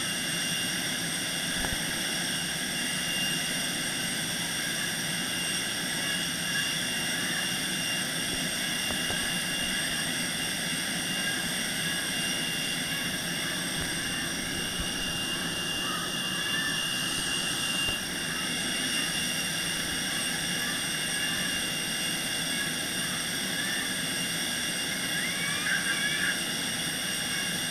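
Steady aircraft noise on the ground: a constant droning rumble with several high, unchanging whining tones, jet-turbine in character.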